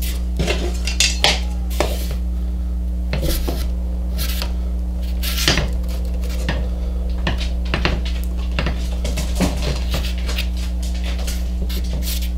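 Wooden end-grain blocks clicking and clacking as they are handled and set into line in pipe clamps, with a metal straightedge tapping against them. The clicks are sharp and irregular, over a steady low hum.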